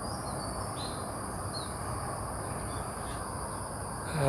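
Outdoor ambience: a steady high-pitched insect drone over low background noise, with a few faint short bird chirps in the first couple of seconds.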